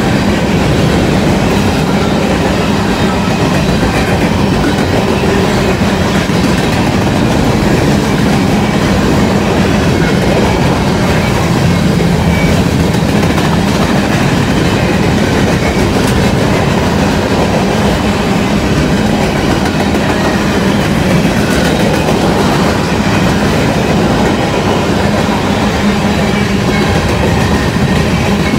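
A long freight train of covered hopper cars, which may be an empty grain train, rolling past close by: steel wheels running on the rails in a steady, loud, unbroken noise.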